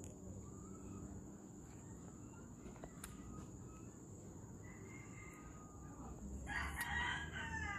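A rooster crowing once, starting about six and a half seconds in: a long call of about a second and a half that falls in pitch at its end. Fainter bird calls come before it.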